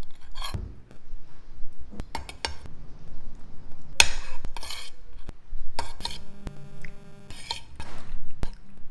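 Spoon and fork scraping and clinking against a plate as the last grains of rice are scooped up: a string of short clicks and scrapes, with a longer scrape about four seconds in.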